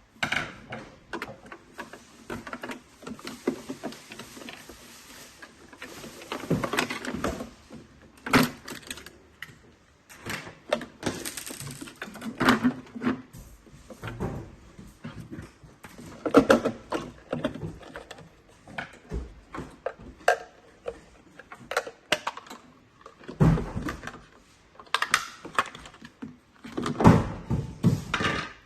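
Hands taking apart the plastic housing of a robot vacuum base station. There is an irregular string of clicks, knocks and short scraping rubs, with a heavier thunk about 23 seconds in.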